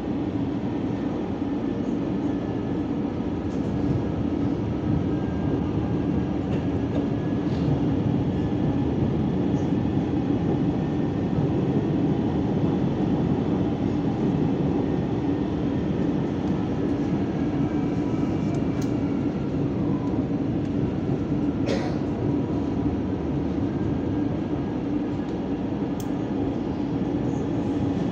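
CPTM Line 13 electric commuter train running along the track, heard from inside the carriage: a steady rumble with faint drifting whines and a single sharp click a little over twenty seconds in.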